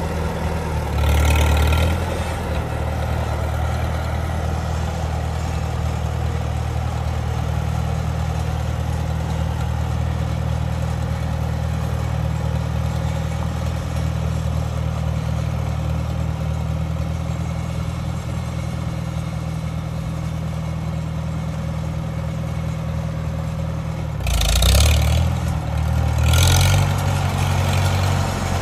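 1957 Farmall 350 tractor engine running steadily as the tractor drives, getting briefly louder about a second in and twice near the end.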